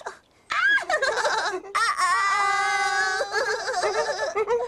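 A high-pitched voice crying out: a short rising cry, then a long held, wavering wail.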